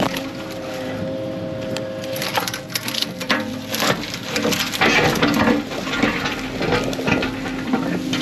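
Brush and branches cracking and snapping as heavy diesel machinery crushes through them, over the machine's engine running steadily. The snapping grows busy about two seconds in and goes on until near the end.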